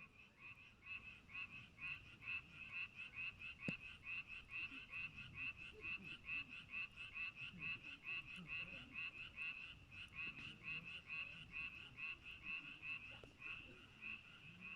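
A frog calling continuously in a fast, even run of croaks, about four or five a second. The dying campfire gives a sharp pop about four seconds in and a smaller one near the end.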